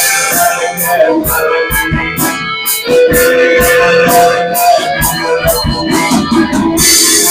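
Live rock band playing an instrumental passage: electric guitar over drums with regular cymbal strikes. About three seconds in, a long sustained note is held for nearly two seconds.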